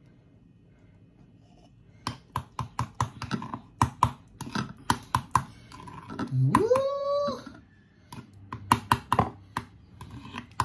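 Metal spoon stirring thick porridge in a ceramic bowl, clinking sharply against the sides about three times a second. About halfway through, the clinking pauses for a loud sound that rises in pitch and then holds for about a second.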